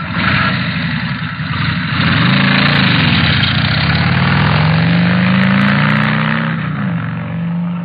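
Harley-Davidson V-twin motorcycle engine revving loudly, its pitch rising and falling a few times, then climbing and holding high before dropping off near the end.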